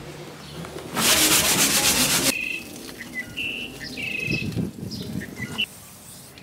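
Sanding on a paddleboat's hull, a rapid scratchy rasp lasting just over a second, starting about a second in. Then birds chirping in short high calls.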